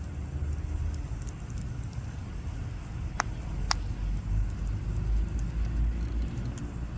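Campfire crackling, with two sharp pops about half a second apart a little past three seconds in, over a steady low rumble.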